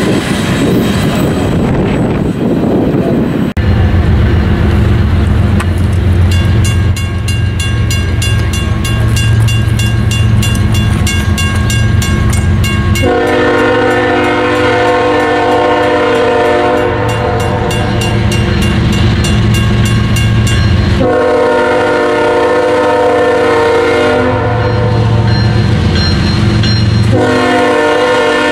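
An intermodal freight train's cars rolling away at the start, then a grade-crossing bell ringing fast and steadily over a diesel locomotive's deep rumble. The CSX locomotive's air horn sounds two long blasts for the crossing as it approaches, with a third beginning near the end.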